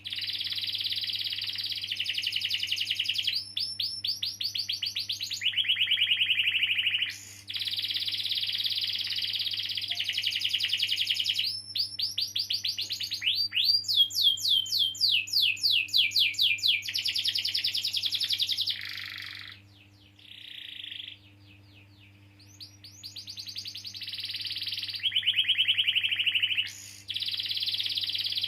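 Domestic canary singing long rolling trills, fast buzzy rolls alternating with quick sweeping notes, with a short lull about two-thirds of the way through.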